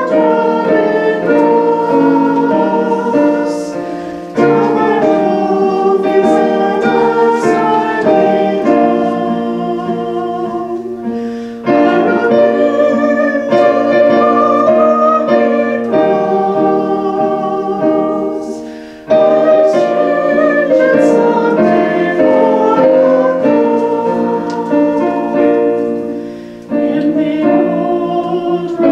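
A hymn sung with piano accompaniment, in phrases about seven seconds long, each starting loud and fading away.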